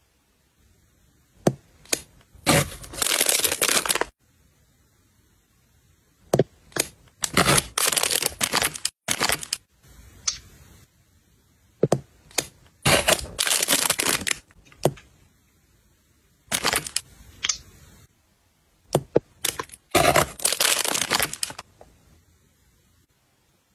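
Toy packaging being handled and opened: repeated one-to-two-second stretches of crinkling and tearing, with sharp clicks and snaps between them.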